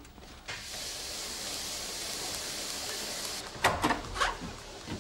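A steady hiss for about three seconds that stops sharply. It is followed by a few sharp clacks of the front door's letterbox flap as post drops through.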